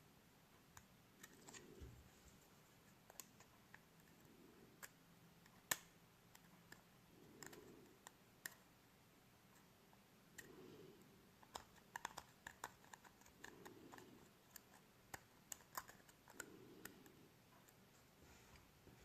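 Faint, scattered small clicks and ticks of small parts and a tool being handled during an LED bulb repair, irregular and a few each second in the busier stretches, with one louder click about six seconds in. A soft hushing sound comes back about every three seconds.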